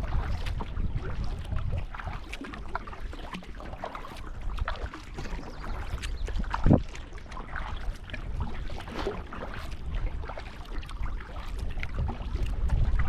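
Water lapping and splashing with scattered small knocks, over a wind rumble on the microphone; one louder knock about six and a half seconds in.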